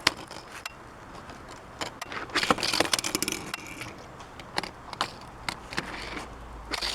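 Die-cast Hot Wheels cars rolling along a toy track, with scattered clicks and small rattles and a denser clatter about two to three seconds in.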